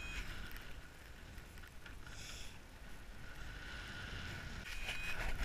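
Wind rushing over the camera microphone of a paraglider in flight. A short steady electronic tone from the flight variometer sounds near the end.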